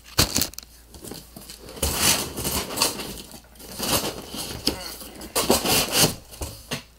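Cardboard box and packaging scraping, rustling and tearing in irregular bursts and knocks as a part is yanked out of the box.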